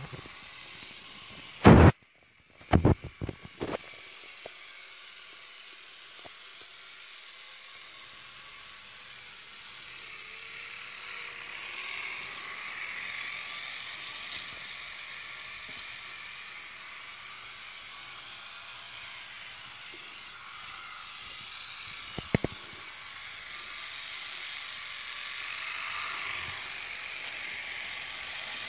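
Jouef model train running around its track, a steady running noise from the small electric locomotive and its wagons that grows louder twice as the train passes close. A few loud knocks come about two seconds in, and a short click about twenty-two seconds in.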